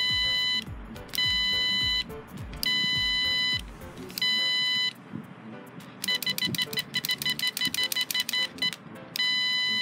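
Piezo buzzer on an Arduino water-bowl refill monitor beeping: four long beeps about a second and a half apart, then a fast run of short beeps, then one more long beep near the end. The beeping is the refill alarm, set off as the float switch is moved to test it.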